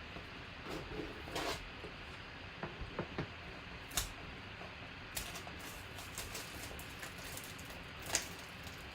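Trading card box and packaging being opened and cards handled: soft rustling with scattered light clicks and taps.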